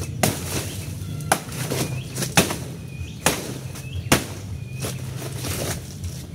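A machete chopping through the stalk of a banana bunch: about six sharp chops a second or so apart, with rustling of leaves and stalk fibre between them. Birds chirp faintly.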